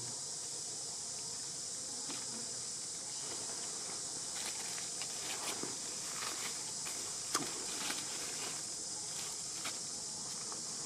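Steady high-pitched drone of insects. From about four seconds in, light crackling and rustling of dry leaves, with one sharper click a little after seven seconds.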